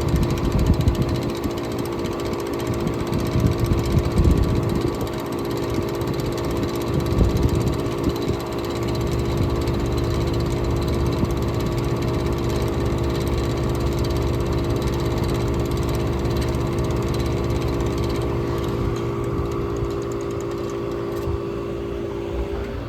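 Outdoor air conditioner condensing unit running, its compressor and condenser fan giving a steady hum with several constant tones. During the first several seconds, gusts of discharge air buffet the microphone.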